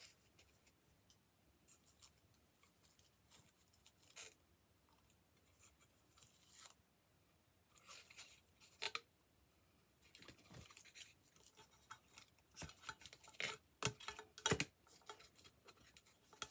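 Scissors snipping and small craft materials being handled: a scattering of short, quiet clicks and rustles, busier in the second half.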